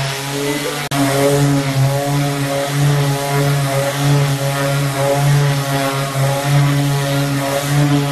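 Makita electric orbital finishing sander running steadily with a constant motor hum as its pad scrubs across a wooden tabletop. A brief click and dip in level about a second in.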